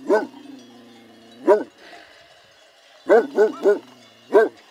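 Large white sheepdog barking: a single bark at the start, another about a second and a half in, a quick run of three just after three seconds, and one more near the end.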